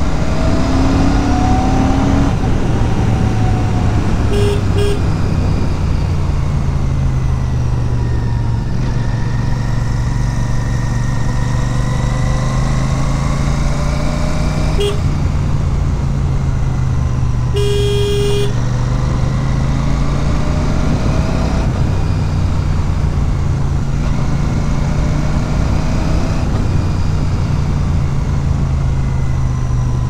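Royal Enfield Super Meteor 650's parallel-twin engine running steadily at cruising speed, its pitch drifting slowly up and down with the throttle. Two short horn toots come about four seconds in, a single toot near the middle, and a longer horn blast a little after halfway.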